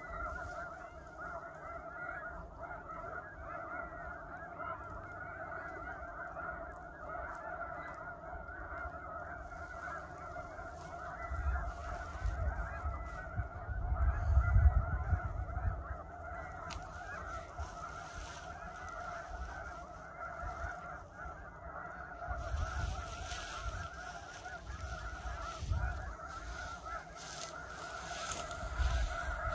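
Thousands of snow geese calling at once: a dense, unbroken chorus of honking from a huge flock. A low rumble swells under it about halfway through and again in the last third.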